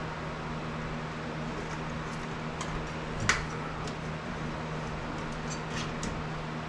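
Electrical cable being fed into a box during rough-in wiring, giving a few faint clicks and rustles with one sharper click about three seconds in, over a steady low hum.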